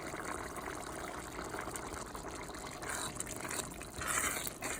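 Thickening pasta and beef sauce simmering and bubbling in a pot, with two brief louder noises about three and four seconds in.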